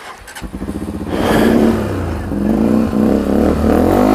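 Sinnis Terrain 125's air-cooled single-cylinder engine: the starter cranks briefly and the engine catches about a second in, then it is revved up and down a few times through its aftermarket Toro exhaust. It sounds a bit meaty.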